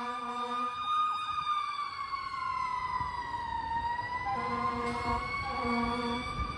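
Fire truck siren wailing, its pitch sliding slowly down and then back up. Near the end it is joined by two short blasts of a lower-pitched horn.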